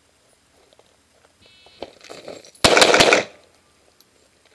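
A shot timer's short start beep, then about a second later a rapid string of pistol shots fired in under a second, drawn from the holster.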